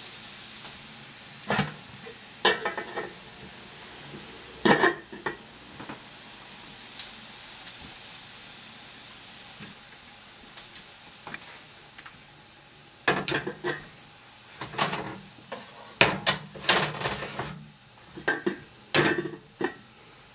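Bacon and onion frying in a pan with a steady faint sizzle, broken by metal pot-and-lid clattering against the gas hob grate: a few clanks in the first five seconds, then a longer run of clattering through the second half.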